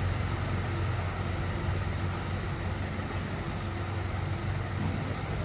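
Steady low hum over a constant rushing background noise, with no distinct knocks or clicks.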